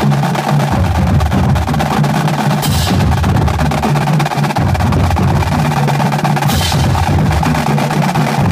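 High school drumline playing a fast cadence: continuous rapid snare strokes over pitched low drums, with a bright crash a little under 3 seconds in and again about 6.5 seconds in.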